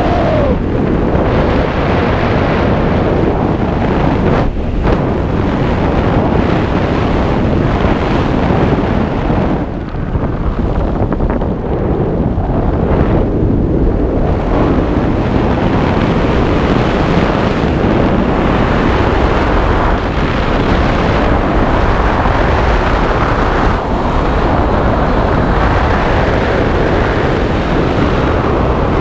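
Steady, loud wind rushing over the camera's microphone as a skydiver glides under an open parachute canopy.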